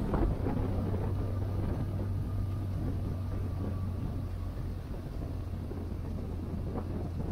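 Motorcycle engine running at a steady cruise, a low even hum, with wind rushing over the microphone.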